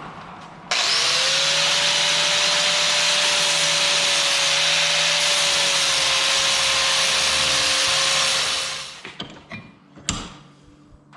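Angle grinder spinning up about a second in and grinding down the edges of heavy aluminium stock, a steady loud hiss over the motor's whine, then switched off and winding down near the end, followed by a knock and a few light metal clinks.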